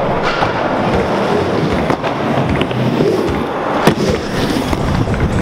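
Skateboard wheels rolling on plywood ramps, a continuous rough rumble, with sharp clacks of the board about two seconds in and again about four seconds in.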